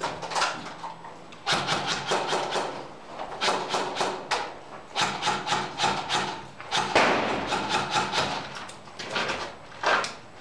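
Footsteps scuffing and crunching on a debris-strewn concrete floor, with gear and clothing rustling: irregular clusters of scrapes and knocks every second or two.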